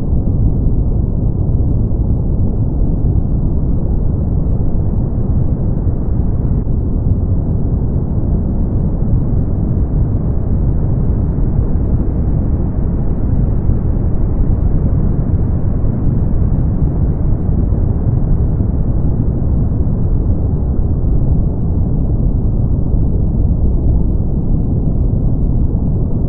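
Brown noise: a steady, deep, even hiss weighted toward the low end, with little treble and no change in level.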